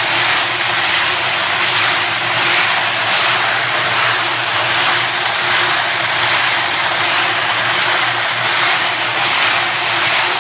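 Kobalt electric cement mixer running as a wet tumbler, its drum churning a big load of brass cartridge cases in soapy water: a steady, noisy rattling wash over a low motor hum.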